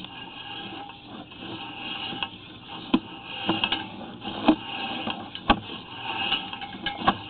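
Sewer inspection camera being pushed along a drain line on its push cable: a steady hiss with several sharp knocks in the second half as the camera head and cable bump through the pipe.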